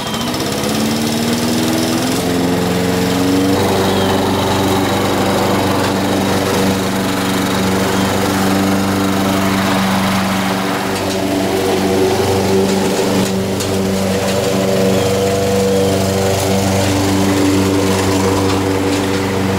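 Honda HR194 push lawn mower's four-stroke engine running. It climbs in pitch over the first few seconds as it comes up to speed, then runs steadily while cutting grass, wavering slightly as it takes load.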